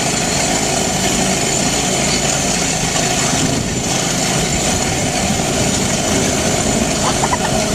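Small go-kart engine running steadily.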